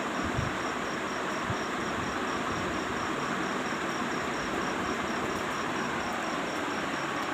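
Fan running with a steady whooshing hiss, a faint high-pitched chirp repeating a few times a second over it, and a few low thumps.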